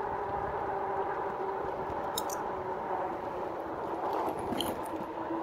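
Rear hub motor of a 2018 RadRover electric fat-tyre bike whining steadily at about 20 mph, over tyre and wind noise. The whine drops slightly in pitch as the bike slows, and two faint ticks come about two seconds and four and a half seconds in.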